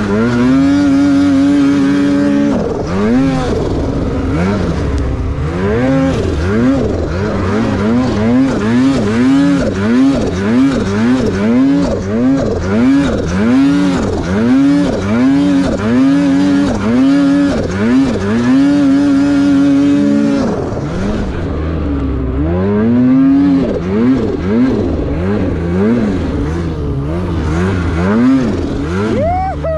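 Polaris mountain snowmobile's two-stroke engine revving hard while riding deep powder. It holds high revs for the first couple of seconds, then rises and falls about once a second as the throttle is worked through turns. It holds high again around two-thirds of the way in, dips, and returns to quick revs near the end.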